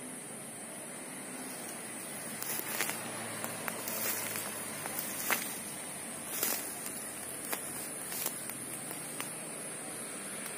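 Irregular snaps and crackles, like footsteps and movement through dry leaves and twigs, starting about two seconds in, over a steady high-pitched drone.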